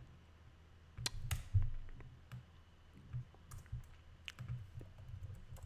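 Computer keyboard keys tapped in irregular, scattered clicks while a block of code is selected and re-indented.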